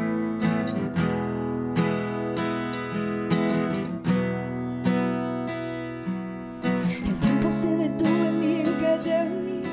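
Acoustic guitar strummed in a steady rhythm as the intro to a song. A woman's singing voice comes in over it about seven seconds in.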